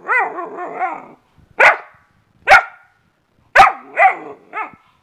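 Chocolate Labrador retriever puppy barking on the "speak" command: a wavering cry for about a second, then five short barks at uneven gaps.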